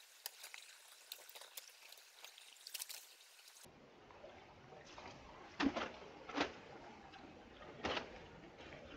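Shallow stream trickling over stones, with small ticks and splashes. In the second half, three sharp knocks and clatters as a folding metal-framed picnic table with attached benches is set down in the water.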